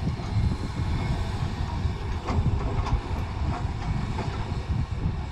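Low, uneven rumble of heavy earthmoving machinery working, with a few faint knocks.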